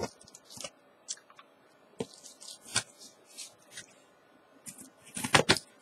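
Hands handling and turning a cardboard shipping box sealed with heavy-duty packing tape: scattered short crackles and scrapes, with a louder cluster of scraping about five seconds in.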